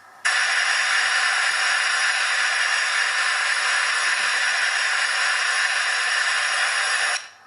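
Model locomotive sound decoder playing a recorded steam-locomotive safety valve blowing off: a steady, loud hiss of steam that starts abruptly just after the start and cuts off sharply near the end.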